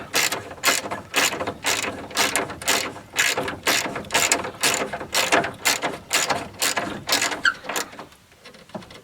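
Ratchet wrench tightening a radiator mounting bracket bolt, clicking in quick back-and-forth strokes about two to three times a second, stopping about eight seconds in.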